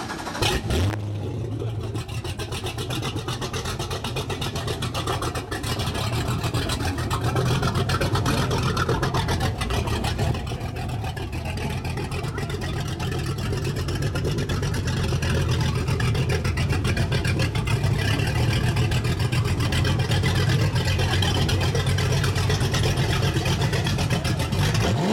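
MerCruiser 496 HO big-block V8 in a Cobalt 272, with Corsa through-hull exhaust, catching and starting about a second in, then idling with a deep, even exhaust pulse that grows somewhat louder as it goes.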